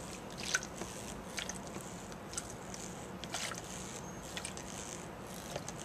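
Faint, irregular squishing and splashing as a hand-squeezed rubber siphon bulb pump pushes water through a clear tube into a plastic tub.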